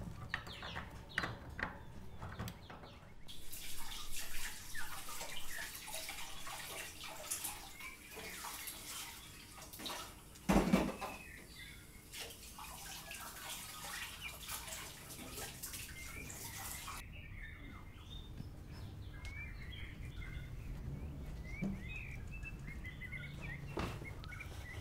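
Tap water running into a kitchen sink while dishes are washed by hand, with one loud clunk about ten seconds in. The water stops and small birds chirp in short, high calls.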